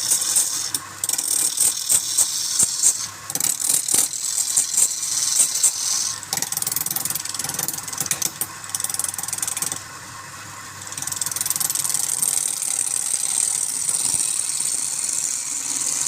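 Wood lathe spinning a workpiece with a turning tool cutting into it: a scraping hiss that comes in uneven bursts with quick knocks over the first half, drops back about ten seconds in, then runs more steadily.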